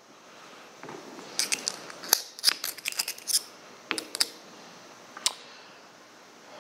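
Sharp metallic clicks and taps of small steel hydraulic-valve parts being handled: a metal sleeve and a pick tool clinking against the valve body. The clicks come in a quick run from about one and a half to three and a half seconds in, then a few single ones later.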